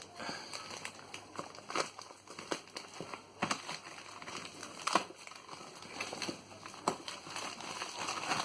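Packaging being handled during an unboxing: irregular crinkling and rustling with scattered clicks and taps, one sharper knock about five seconds in.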